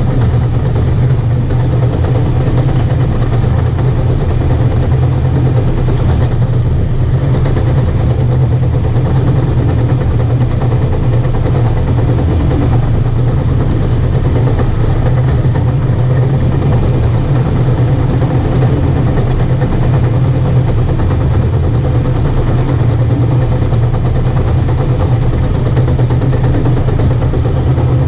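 Caterpillar D5 bulldozer's diesel engine running steadily, with a constant low hum.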